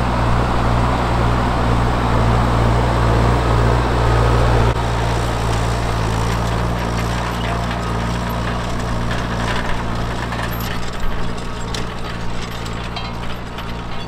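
Fendt 415 Vario tractor's diesel engine running steadily under load while pulling a reversible plough. The sound drops a little about five seconds in, and scattered metallic clicks and clanks come in over the second half.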